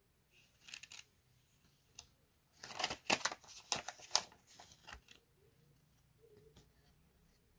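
Handling noise of a paper banknote being flipped over and held: crisp rustles and sharp crackles. There are a few faint ones about a second in and a dense cluster from about three to five seconds in.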